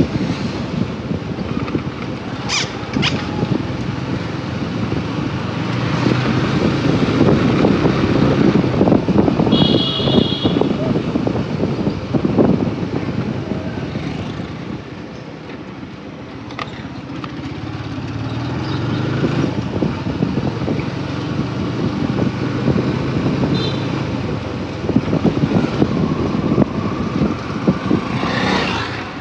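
Motorcycle engine running while riding through town traffic, getting louder as it speeds up and dropping for a while near the middle as it slows. A horn beeps briefly about ten seconds in, and again more briefly later.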